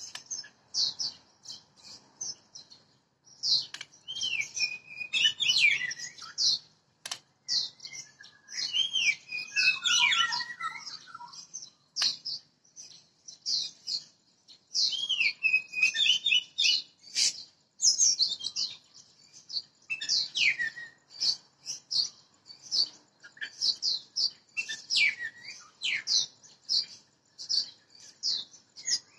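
Wild-caught Oriental magpie-robin singing in its cage: a long, busy run of quick, high chirps and whistled notes, with a few lower, more winding warbled phrases mixed in. A couple of sharp clicks come partway through.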